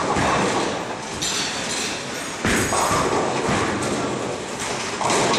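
Tenpin bowling alley lane noise: bowling balls rumbling down the wooden lanes, with three sudden crashes of pins being struck on the lanes, one at the start, one about two and a half seconds in and one near the end, each clattering as it fades.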